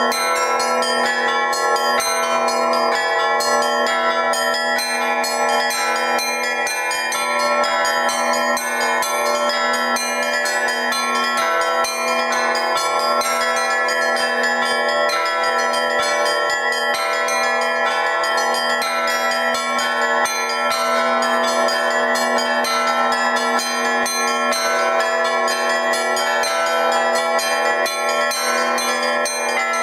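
Russian Orthodox church bells rung by a single bell ringer in a continuous peal: rapid strikes on small bells over the sustained ringing of larger bells. Many bell tones sound at once, densely and without a break.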